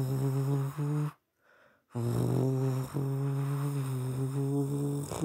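A person humming in long, low, nearly level drones, a mouth-made engine noise for a toy race car pushed by hand. The drone breaks off for almost a second about a second in, then resumes.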